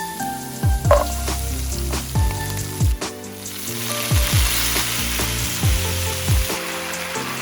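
Food sizzling in a hot pan, the hiss coming in about halfway through, over background music with a steady beat.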